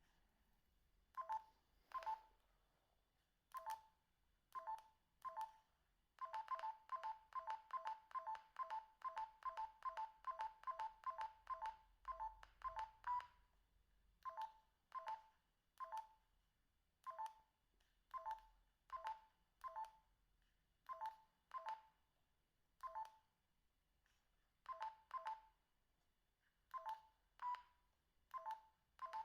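Binatone BB200 mobile phone's keypad beeps as its buttons are pressed through the menus: short two-note beeps, each with the click of the key. They come singly or in pairs a second or so apart, with a quick run of about three a second from about six to thirteen seconds in.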